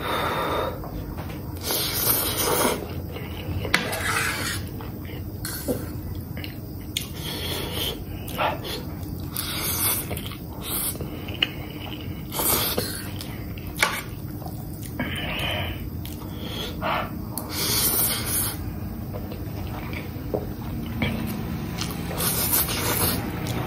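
A person slurping noodles in repeated noisy slurps every few seconds, with light clicks of a fork and spoon against the plate in between.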